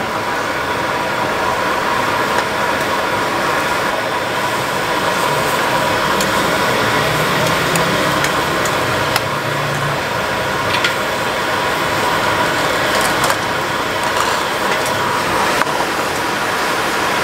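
Gas wok burner running steadily under a sizzling stir-fry, with a few sharp clinks and scrapes as a metal ladle works the food in the small wok.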